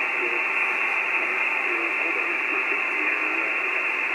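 Steady receiver hiss from an Icom IC-9700 transceiver on SSB receive, tuned to an amateur satellite's downlink between transmissions. It has the narrow, muffled sound of radio audio, with faint wavering tones underneath.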